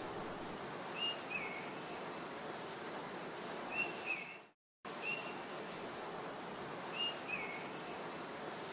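Small birds chirping: short high chirps and lower two-note calls over a steady outdoor hiss. There is a brief cut to silence about halfway, after which the same few seconds of birdsong play again.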